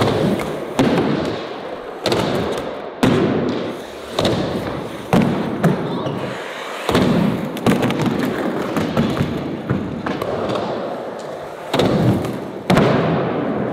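Skateboards ollieing on flat ground: a series of sharp tail pops and board-landing slaps a second or more apart, about eight in all, with the rattle of the boards between.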